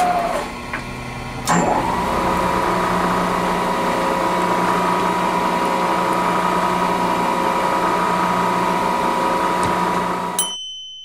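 Milling machine spindle running steadily with a held high whine while a drill-chuck tool cuts into a steel T-slot nut. It dips briefly about a second in, comes back with a sharp click, and cuts off near the end.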